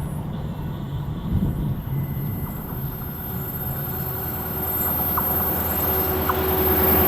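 Diesel freight locomotive approaching: a low engine rumble that grows louder over the last few seconds, with a few light clicks.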